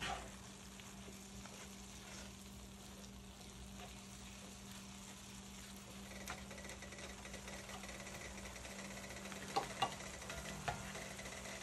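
Ground beef with garlic and mushrooms sizzling in a cast-iron skillet, stirred with a slotted spatula, with a few sharp scrapes and taps of the spatula against the pan near the end.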